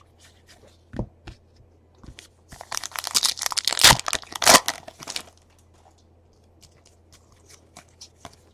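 A foil trading-card pack wrapper being torn open and crinkled, loudest for about three seconds in the middle, with light taps and clicks of cards being handled before and after.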